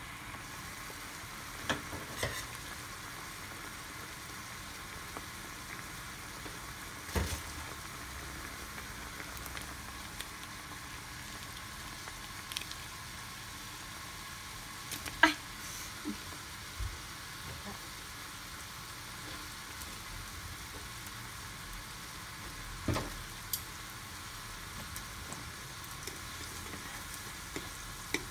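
Shoyu ramen broth bubbling at a rolling boil in a pot, a steady hiss, with scattered light clicks and knocks from handling at the pot; the sharpest knock is about halfway through.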